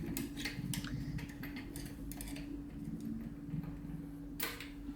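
Light metallic clicks and scrapes as the thin dust shield of a BMX freecoaster hub is worked off, with a louder scrape near the end as it comes free. A steady low hum runs underneath.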